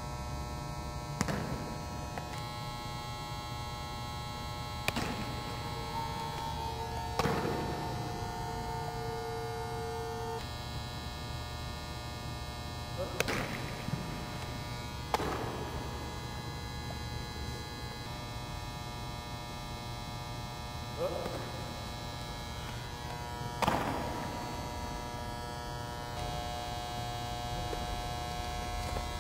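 Steady electrical hum with several sharp thumps a few seconds apart.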